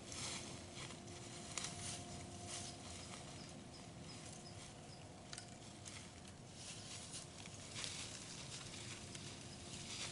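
Irregular rustling with a few sharper snaps and crackles, of the kind made by dry leaf litter being stirred or stepped in, over a faint steady hum.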